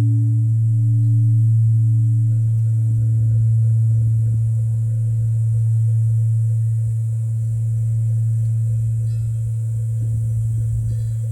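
Large Korean Buddhist bronze temple bell (beomjong) ringing on in a long, deep hum after being struck, with an upper tone that pulses slowly and dies away in the first few seconds.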